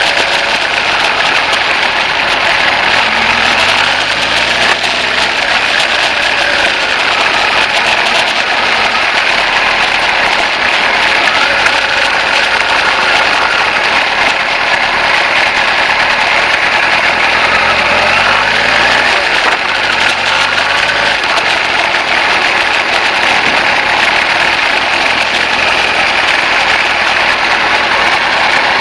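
Kawasaki ZZ-R1100's inline-four engine running at low speed in traffic under steady wind and road noise. Twice, a few seconds in and again about two-thirds through, the engine's pitch climbs in steps as the bike pulls away and accelerates.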